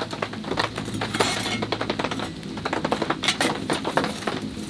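Metal campfire trivet (gotoku) clinking and scraping as it is set in place over the burning logs, with the firewood being shifted: a dense run of sharp clinks and knocks.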